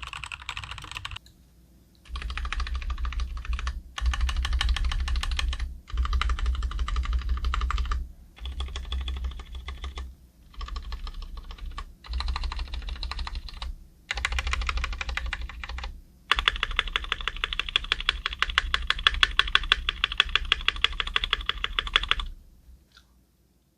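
Rapid, repeated presses on the stabilized long keys, the spacebar among them, of a Cherry MX Board 3.0S: a plateless keyboard with Cherry MX Red linear switches mounted directly on the circuit board and lubricated Cherry-style stabilizers. The presses come in about nine quick runs separated by short pauses, and the last run lasts about six seconds. They sound clean and neat with no rattle at all, the sign of well-tuned stabilizers.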